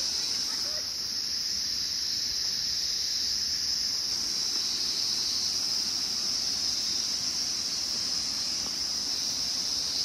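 Insects calling in one continuous, high-pitched drone.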